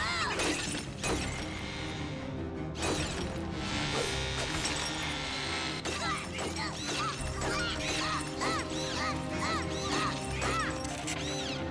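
Cartoon action music with ice shattering and crashing, several sharp smashes in the first half. A run of short rising-and-falling tones follows in the second half.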